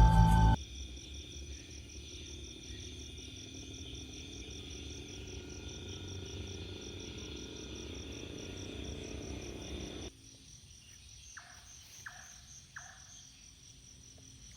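Night insects, crickets, chirring steadily in a high pulsing trill over a low rumble. About ten seconds in the rumble cuts off, and a few short separate calls sound over the quieter chirring.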